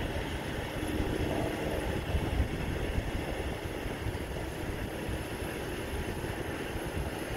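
Heavy truck moving slowly with a steady low rumble of engine and tyres.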